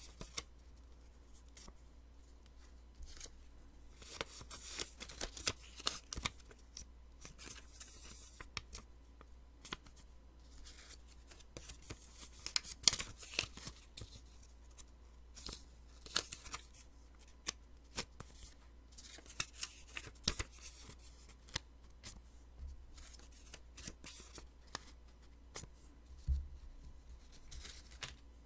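Post-it sticky notes being peeled off and handled close to the microphone: repeated short crackling rips and papery clicks at irregular intervals, with a faint low hum underneath.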